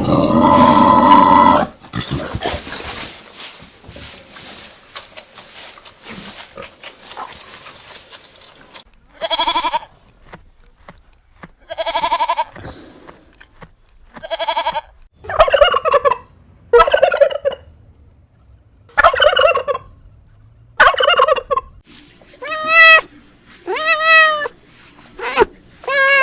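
Turkeys gobbling: a run of about ten short, rapid warbling calls starting about nine seconds in, after a loud call at the very start and a quieter stretch.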